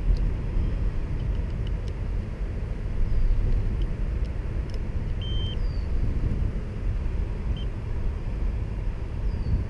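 Steady low outdoor rumble, with faint clicks as a LiPo battery checker is plugged onto a battery lead and a short faint beep from the checker about five seconds in.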